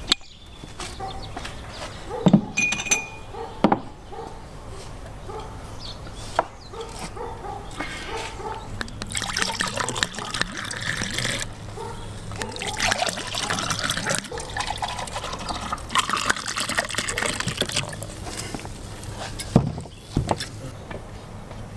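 A drink is being poured into glasses in three pours of about two seconds each, with a few knocks and clinks between them.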